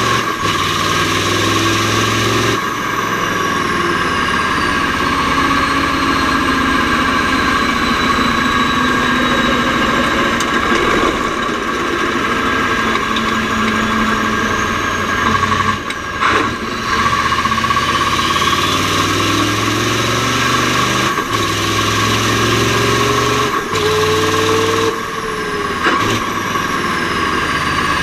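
Mack R-series V8 truck engine pulling under load, its pitch climbing and then falling back with each gear change of the Roadranger gearbox. There is a short dip in sound about halfway through and another near the end.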